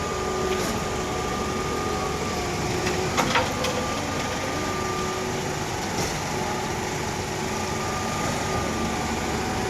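A vehicle engine idling steadily, with a few sharp knocks a little over three seconds in.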